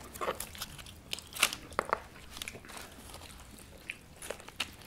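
Crunching, cracking and clicking as a cooked sheep's head is pulled apart by hand and cut with a knife, meat and cartilage tearing off the skull, with a few sharp cracks in the first two seconds.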